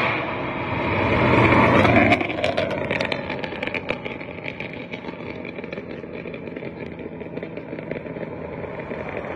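2006 Ford Mustang GT's 4.6-litre V8 through a Corsa Extreme axle-back X-pipe exhaust, run hard past at full throttle. It builds to its loudest about two seconds in, drops off sharply, then fades as the car pulls away.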